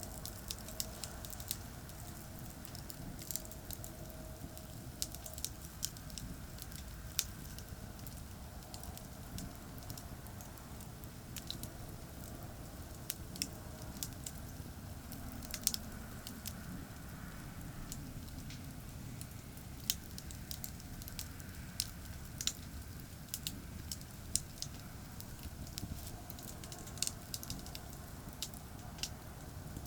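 Campfire crackling, with sharp irregular pops throughout, over a steady low rumble of distant highway traffic.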